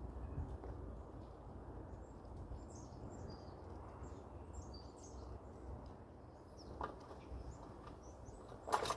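Steady wind noise with faint, short, high bird chirps, and a sharp click about seven seconds in and a louder one near the end.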